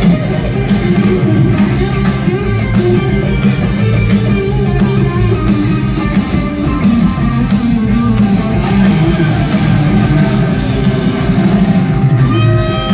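A live rock band playing an instrumental stretch, with electric guitar out front over bass and drums. Near the end, long held notes come in above the band.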